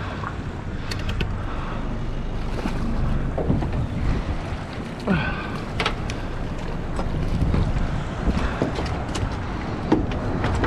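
Wind on the microphone and water moving around a small fishing boat. A few sharp knocks and splashes come as a jack crevalle is swung aboard and hits the deck.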